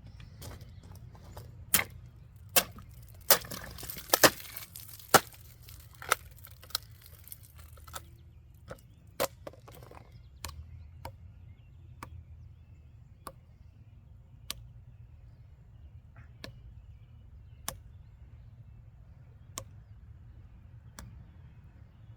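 Small multitool knife blade cutting into a bottle, with sharp snapping clicks: a quick run of loud ones in the first few seconds, then single clicks every second or two.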